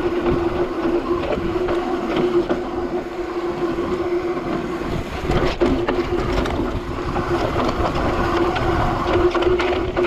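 Trek Slash full-suspension mountain bike rolling down a dirt trail: tyre noise with a steady buzzing hum throughout, and rattles and knocks from the bike over bumps, the sharpest about five and a half seconds in.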